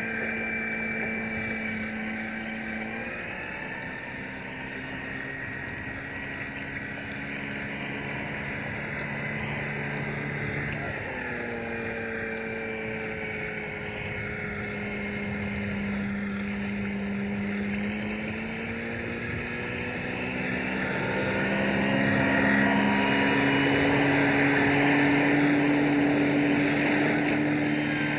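Motorboat engine running steadily, its pitch sliding down and back up as the throttle changes, louder for the last several seconds.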